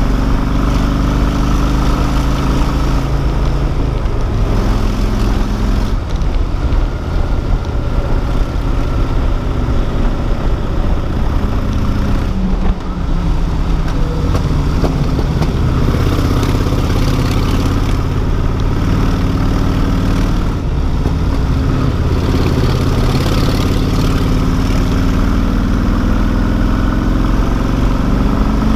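Cruiser motorcycle engine running on the move, its pitch dropping and rising several times with the throttle and climbing near the end.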